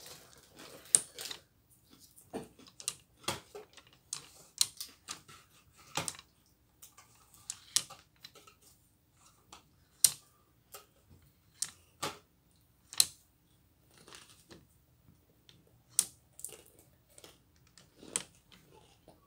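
Wooden beads on a children's counting abacus being pushed along metal rods, clacking against each other and the wooden frame in irregular sharp clicks, about one a second with some quick pairs.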